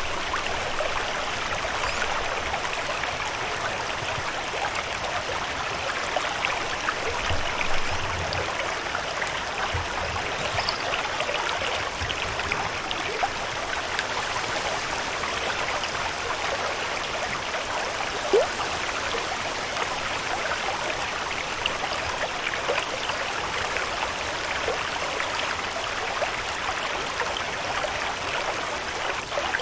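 Steady water ambience: an even hiss of flowing or falling water full of small drips and patters, with a soft low thump about eight seconds in and a single sharper tick a little past the middle.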